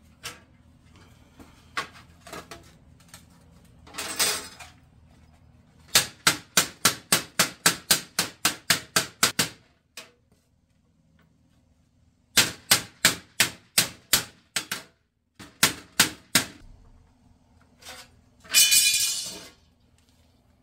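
Hammer blows on sheet steel, folding over the edge of a ribbed steel repair strip: two quick runs of strikes, about four a second, with a pause between and a few single knocks before them. A second-long scrape comes near the end.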